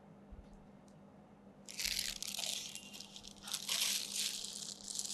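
Plastic crinkling and rustling as it is handled, starting nearly two seconds in and going on in uneven bursts for about three seconds.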